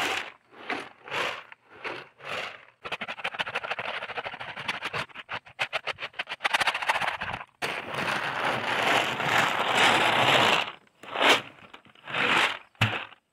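Rocks and a steel knife blade rattling and tumbling inside a lidded plastic 5-gallon bucket as it is shaken. The first shakes come separately, about two a second, then turn into a dense, continuous rattle with a few separate clatters near the end. This is stonewashing: the rough stones are scratching the black surface that ferric chloride etching left on the blade.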